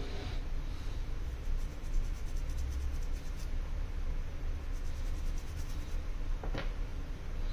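Light scratchy brushing and handling of an opened iPhone 11 Pro over a steady low hum, with one sharp click about six and a half seconds in as a fingertip presses a flex connector onto the board.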